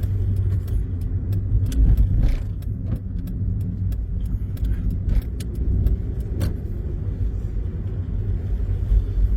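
Car driving along a road, heard from inside: a steady low rumble of engine and road noise, with small clicks and rattles scattered through it.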